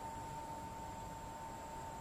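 Steady outdoor background noise with a constant faint high whine and a low rumble; no distinct event.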